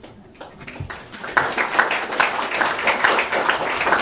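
Audience applauding at the end of a poem: scattered claps about half a second in, swelling to full applause by about a second and a half.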